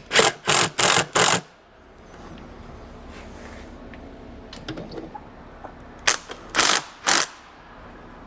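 A power driver running in the meter housing's end cap bolts in short trigger pulses: four quick bursts, a pause of several seconds, then three more.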